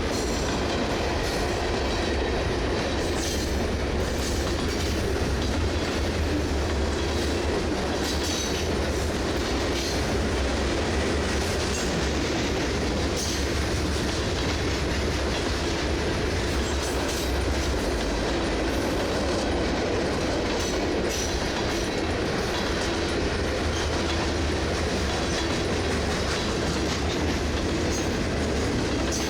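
Freight cars of a CSX manifest train rolling past at a steady pace, wheels clattering on the rails with occasional clacks.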